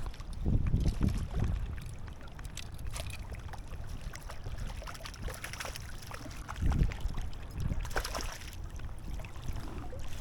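Wind gusts buffeting the microphone in heavy low rumbles about half a second in and again near seven seconds, over running stream water, with scattered small clicks and a brief splashy hiss near the end.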